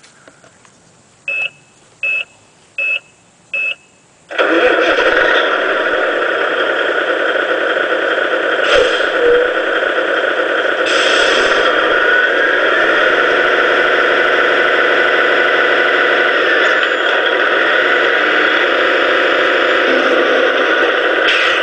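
RC semi-truck's electronic sound unit: four short high beeps, then a simulated truck diesel engine starts abruptly about four seconds in and runs steadily through its loudspeaker, with a brief hiss about eleven seconds in.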